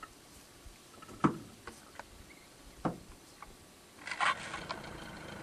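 Small clicks and two sharp knocks in a fishing boat, then a steady motor drone starts about four seconds in.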